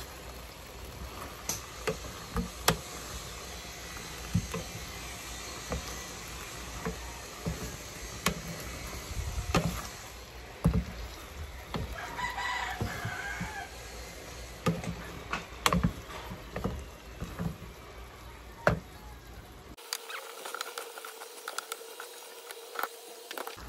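Wooden spatula stirring food in a nonstick frying pan, knocking and scraping against the pan in irregular clacks. A brief call-like sound is heard in the background about halfway through.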